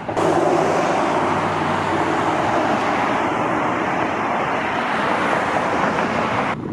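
Road traffic noise: a motor vehicle running close by, with a low engine hum that fades over the first couple of seconds under a steady rush of tyre and road noise. It starts and stops abruptly.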